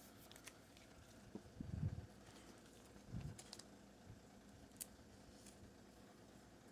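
Near silence with faint handling noise from Pokémon trading cards being moved in the hand: a soft bump a little under two seconds in, another about a second later, and a light click near five seconds in.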